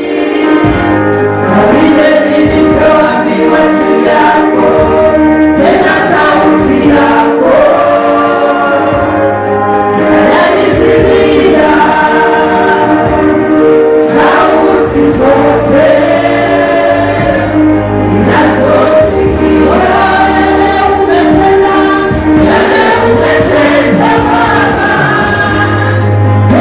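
Gospel choir singing with backing music, a steady bass line under the voices.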